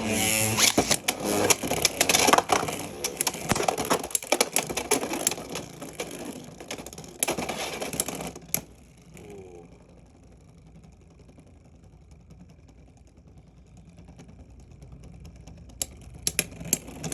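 Beyblade X spinning tops clattering and clashing in a plastic stadium, a rapid run of hard hits for about eight seconds that ends in a sharp knock. After that only a faint whir of a top spinning on, with a few clicks near the end.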